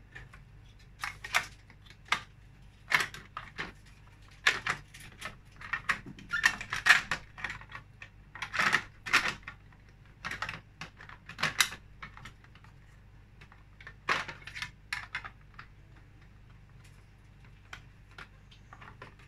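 Hard plastic parts of a tower fan's stand clicking and knocking as they are handled and fitted onto the fan body. The clicks come irregularly, thick for most of the time and fewer near the end.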